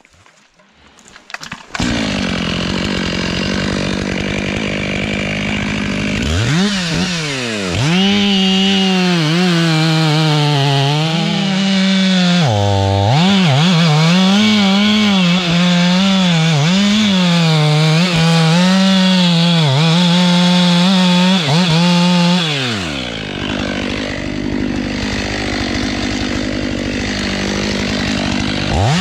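Two-stroke Stihl MS 500i chainsaw running steadily, then revved up about six seconds in and cutting into a thick beech trunk, its pitch dipping and recovering under load. It drops back to a lower, steadier running about six seconds before the end.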